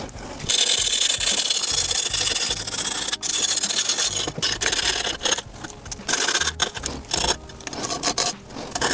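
A scrap of grip tape rubbed along the edges of freshly laid grip tape on a scooter deck to scuff them, a gritty sanding rasp. It runs unbroken for about three seconds, then goes on in shorter strokes with brief pauses.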